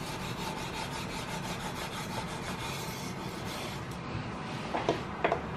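240-grit sandpaper backed by a file, rubbed in steady strokes along a flat of an octagonal steel rifle barrel to soften the draw-filing marks, with a few short knocks near the end.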